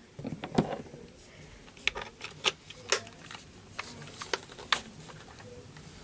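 Irregular light clicks and taps, about a dozen in a few seconds, of a drill and its bits being handled as the bit is changed to a 1/8 inch drill bit.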